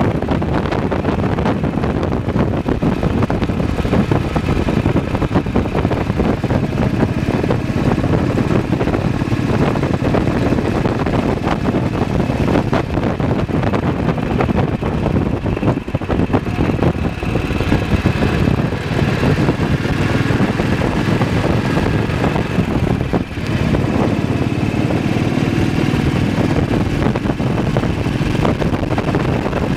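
BSA WM20 motorcycle's single-cylinder side-valve engine running steadily under way at road speed, with one brief dip in level a little past two thirds of the way through.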